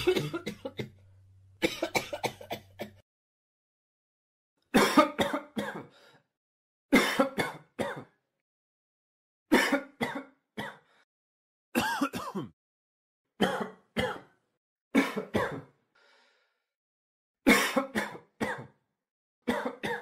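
A person coughing in short fits of two to four coughs each. There are about nine fits, with pauses of a second or two between them.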